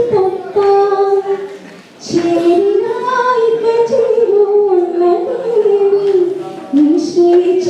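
A woman singing a slow melody into a microphone, holding long notes that bend gently in pitch, with a short break for breath about two seconds in.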